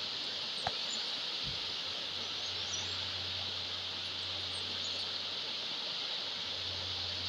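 Steady outdoor ambience of a shallow rocky river rushing over riffles, under a constant high insect drone with a few faint, short bird chirps. A single sharp click comes about half a second in, and a dull low thud about a second and a half in.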